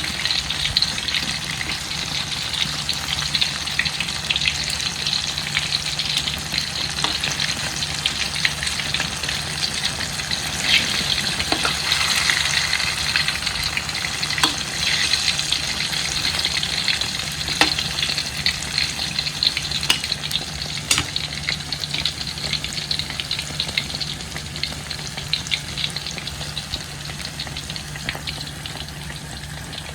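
Banana fritters frying in hot oil, sizzling and crackling with many small pops, over a steady low hum. The frying grows a little quieter toward the end.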